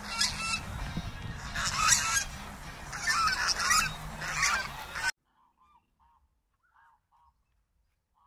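Geese honking: four loud bursts of calls, then the sound cuts off suddenly about five seconds in, leaving only a few faint short calls.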